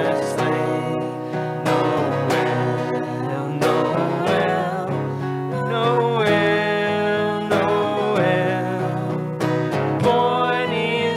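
Live worship band music: acoustic guitar strumming under voices singing a melody.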